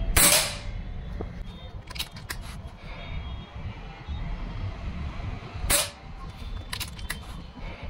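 .177 PCP air rifle (Precihole PX 100 Achilles) firing twice, one shot right at the start and another about six seconds later. Each shot is followed a second or so later by a few sharp clicks of the action being worked for the next pellet.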